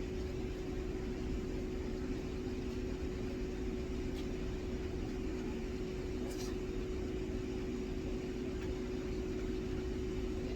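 Steady machine hum with a constant tone, and a couple of faint ticks.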